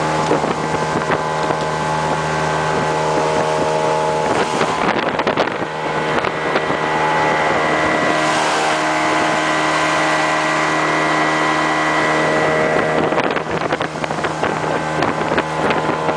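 Speedboat engine running at a steady pitch, over the rush of water and wind on the microphone.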